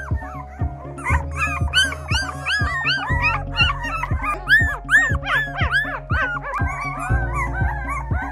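Month-old Border Collie puppies whimpering and yipping, many short high rising-and-falling cries several times a second, over background music with a steady beat.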